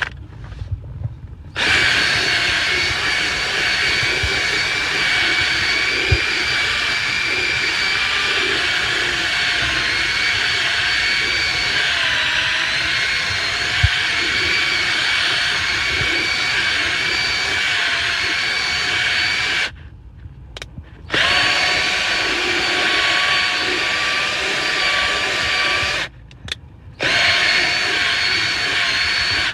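Cordless power tool's electric motor running steadily with a high whine, switched off briefly twice, once about two-thirds of the way through and again shortly before the end.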